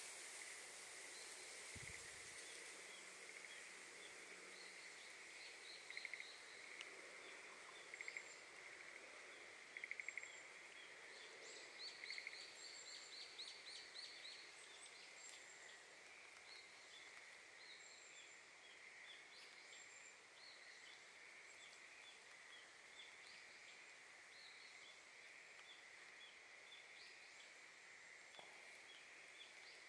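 Faint outdoor ambience: birds chirping and calling on and off, with a fast run of repeated notes near the middle, over a steady high-pitched hum.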